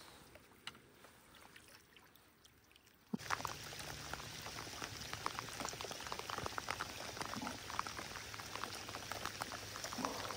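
Rain falling on open water, a dense, steady patter of drops that comes in abruptly about three seconds in. Before that there are only a few faint water drips.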